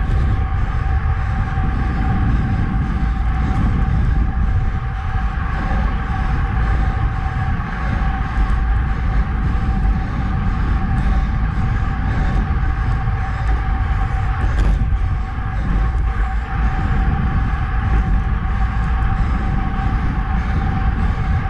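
Road bike on Roval Rapide CLX64 deep carbon wheels rolling at about 32 km/h: steady wind rush and rumble on the handlebar camera's microphone with tyre noise on asphalt, under a thin steady hum.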